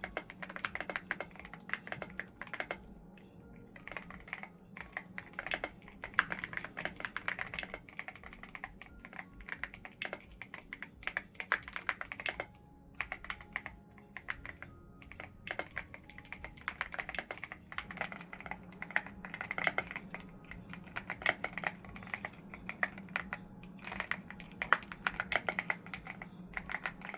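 Custom mechanical keyboard being typed on in a fast, continuous stream of key clacks with a 'creamy' sound profile, pausing briefly twice about halfway through.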